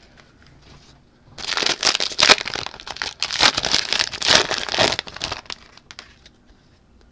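A foil trading-card pack wrapper crinkling as it is torn open. The crinkling starts about a second in and goes on for about four seconds.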